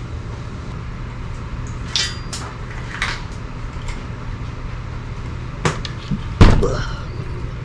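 Scattered clunks and knocks from handling the freshly removed motorcycle engine and parts, the loudest a heavy thump about six seconds in, over a steady low hum.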